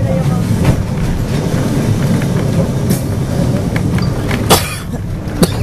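Old electric tram running along street rails, heard from the driver's cab: a steady low rumble of wheels and motor, with a few sharp knocks, the loudest about four and a half seconds in.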